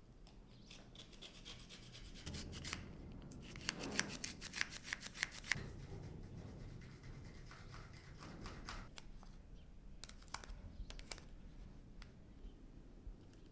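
Hands preparing food: rubbing and scraping, with a fast, even run of sharp strokes about four to five and a half seconds in and a few scattered clicks later.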